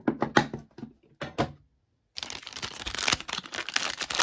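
A few sharp clicks of packaging being handled, then a brief dropout, then from about halfway on a continuous crinkling and tearing of plastic wrapping as a Match Attax card tin's packaging is opened.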